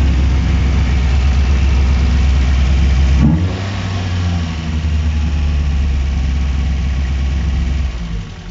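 Toyota 4A-GE 1.6-litre twin-cam 16-valve engine, fitted with an open cone air filter, idling steadily. About three seconds in there is a short rise in pitch, after which the idle continues a little quieter, then fades near the end. The engine is loud.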